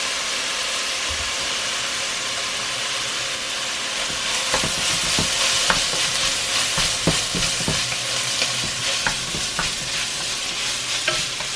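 Aromatics and onion frying in hot oil, with a steady sizzle that gets louder about four seconds in. A utensil then knocks and scrapes repeatedly against the pan as the mixture is stirred.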